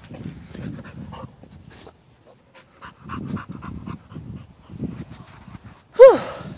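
A large dog panting with its tongue out, tired from the heat, in quick rhythmic breaths with a short pause about two seconds in. Near the end a brief, loud, falling-pitched voice-like sound cuts in.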